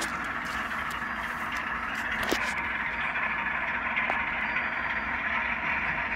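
ScaleTrains ES44 model locomotive's LokSound decoder playing its GE GEVO diesel prime-mover sound through the model's small speaker, running steadily with no change in pitch.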